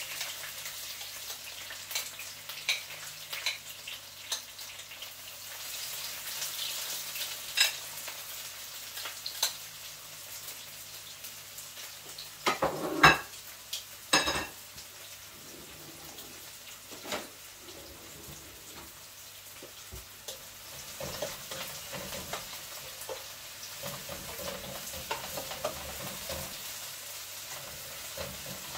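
Sliced onions sizzling steadily in a little hot olive oil in a frying pan as they are sautéed and turned, with scattered sharp clicks of the utensil against the pan. There is a louder clatter about halfway through.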